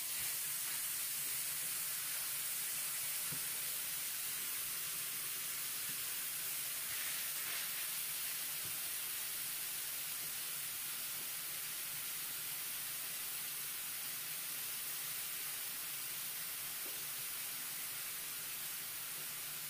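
Raw ground beef patty with sliced onion pressed into it sizzling on a preheated electric griddle. The steady hiss starts as the meat goes down and eases off slightly by the end.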